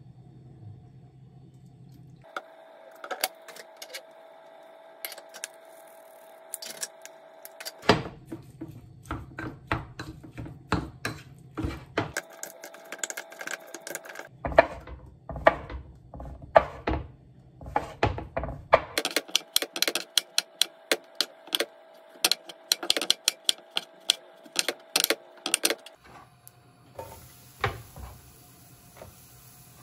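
A wooden spoon clicking and scraping against a ceramic bowl while raw beef is mixed with seasoning, in runs of quick, uneven taps over a steady kitchen hum.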